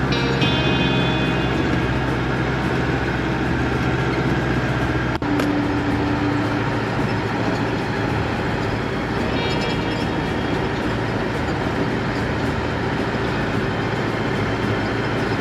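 A motor vehicle running steadily, a continuous engine hum with driving noise, which breaks off abruptly about five seconds in and carries on.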